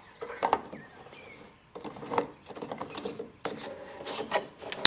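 Plastic gas cap being fitted and screwed onto a riding mower's fuel filler neck: irregular scraping and rubbing of plastic on plastic, with the cap's ratchet starting to click as it tightens at the very end.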